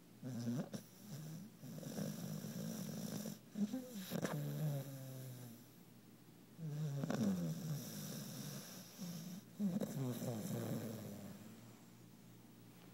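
Pit bull puppy snoring in deep sleep: a long, pitched snore with each breath, one every two to three seconds.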